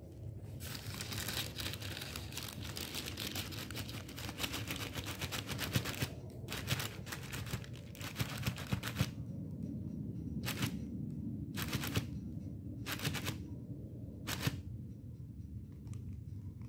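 Thin white plastic bag crinkling as a kitten pushes its head into it: dense continuous rustling for about the first six seconds, then separate short crinkles every second or so, over a steady low rumble.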